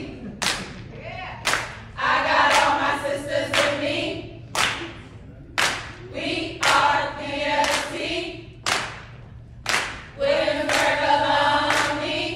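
A line of women singing a chant in unison, in phrases of a couple of seconds, with a pair of sharp claps after each phrase.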